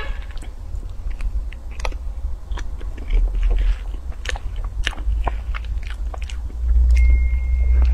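Close-miked eating sounds: chewing and biting on a soft cream cake with chocolate crumbs, full of small wet mouth clicks, with a metal spoon scraping through the cake in its paper box. A thin, steady high tone sounds for about a second near the end.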